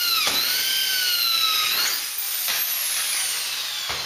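Electric hand drill running at speed, drilling down through the aluminium tube trailer frame. The whine dips sharply in pitch just after the start as the bit bites, holds, then about halfway through the trigger is released and the motor winds down in a long falling whine.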